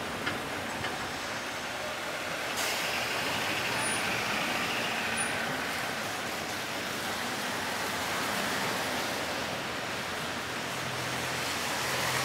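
Sapporo 3300-series tram pulling away from a stop, with road traffic on slushy streets running beside it. The noise is steady, and a brighter hiss sets in about two and a half seconds in.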